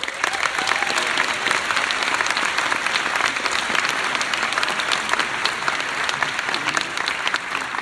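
Large audience applauding: dense, steady clapping that begins abruptly.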